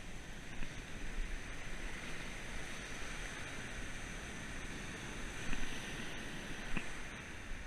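Rough open-ocean surf breaking and washing up a beach, a steady rush that builds through the middle, with two short clicks near the end.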